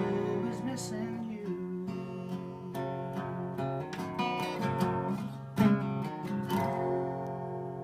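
Acoustic guitar playing the song's closing strummed chords, the last chord ringing out and fading near the end.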